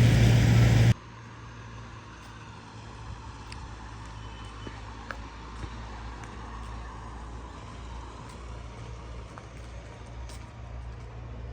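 Farm machinery engine running steadily: very loud for about the first second, then cutting abruptly to a quieter, more distant steady low hum.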